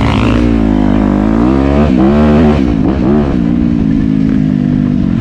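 Small off-road vehicle engine revving up and down under the throttle for the first three seconds or so, then running at a steadier speed.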